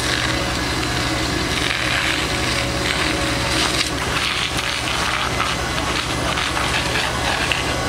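Fire crackling and snapping as a static caravan burns, fully ablaze, over a steady low hum.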